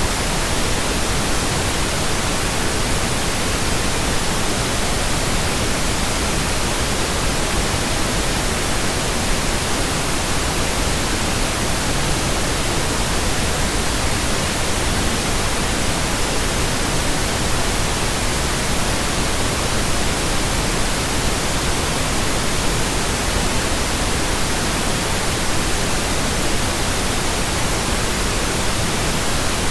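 Steady synthetic pink noise: an even, unchanging hiss spread across the whole range of pitch.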